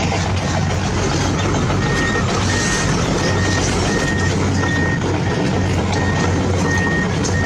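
Steady engine rumble of a radio-controlled construction vehicle's sound unit. From about two seconds in, a reversing beeper sounds repeatedly, a short high beep roughly every half second or so: the machine is backing up.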